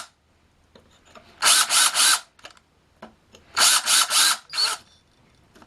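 Power drill countersinking a screw hole with a larger bit, run in quick pulses of the trigger: a group of three short bursts, another group of three about two seconds later, then a single burst.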